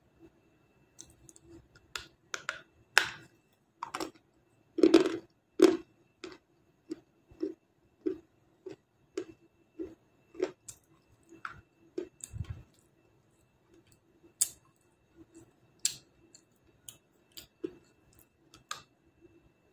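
Close-up mouth crunching of a brittle slab of 'black star' eating clay, bitten and chewed: a string of sharp, irregular crunches, loudest in a cluster about five seconds in.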